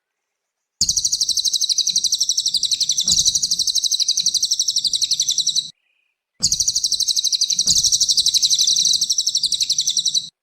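A cililin singing its fast chattering song: two long bursts of rapid, high, closely repeated notes, each about four to five seconds long, split by a short pause of under a second.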